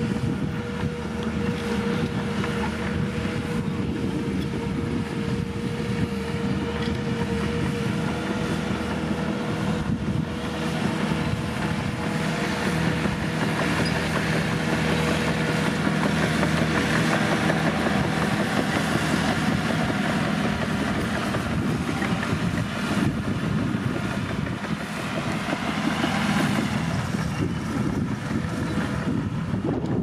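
Caterpillar bulldozer's diesel engine running steadily as the dozer works.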